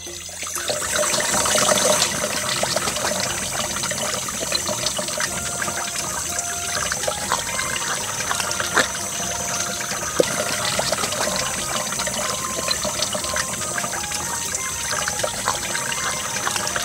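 Tap water running steadily and splashing over hands and gutted crucian carp as they are rinsed clean under the faucet, with a few light knocks as the fish are handled.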